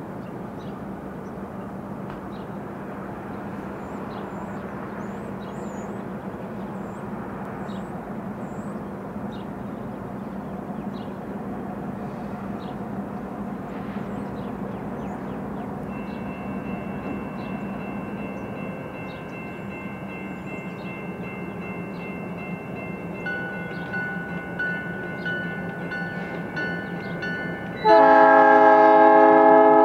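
Two CN diesel freight locomotives approaching at low speed, the engine rumble growing slowly louder. From about halfway a level-crossing bell rings with repeated strikes, and near the end the lead locomotive's multi-chime air horn blows loudly.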